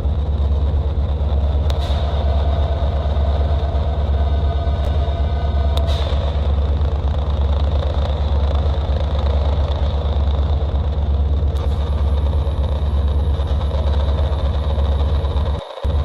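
Fan-made 'planet sound' space ambience, a synthesized electromagnetic-wave drone of the kind made to imitate space-probe recordings: a loud, steady, deep rumble with a hiss and a thin high whine over it. A second, higher whine joins about two-thirds of the way through, and the drone drops out for a split second near the end.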